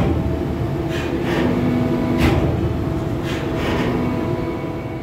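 A ferry's engines droning steadily under way, a low hum with several held tones over a steady rushing noise, with a few brief knocks.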